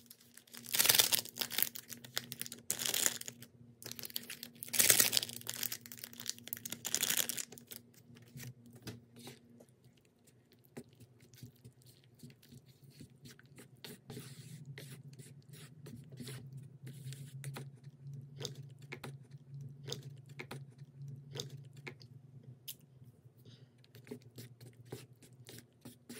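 A few loud rustling, tearing bursts in the first seven seconds or so, like a seasoning packet being torn and shaken out. Then wooden chopsticks stirring sauce in a paper cup: many quick small clicks and scrapes against the cup.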